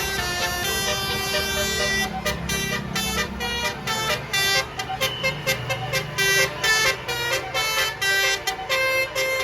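A tour bus's basuri, a multi-trumpet musical air horn, sounds a held chord, then from about two seconds in plays a fast pulsing run of short notes, about three or four a second. A bus engine's low rumble runs underneath.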